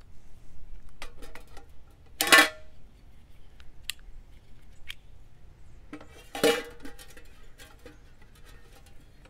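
Metal pot gripper and aluminium Trangia 25 cookware clanking: two loud ringing clanks, about two seconds and six and a half seconds in, with lighter clicks and taps between.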